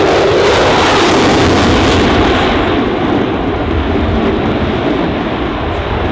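F-22 Raptor's two Pratt & Whitney F119 turbofans in afterburner during a low pass: loud jet noise with a deep rumble. The hissing top end falls away after about two and a half seconds as the jet goes past and moves off.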